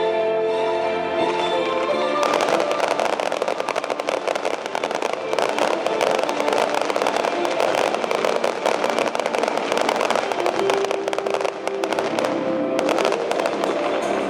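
Fireworks going off in a dense, rapid crackle that starts about two seconds in, over music.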